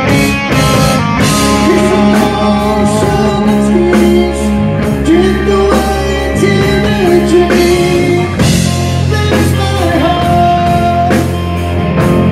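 Live rock band playing: two electric guitars, electric bass and drum kit.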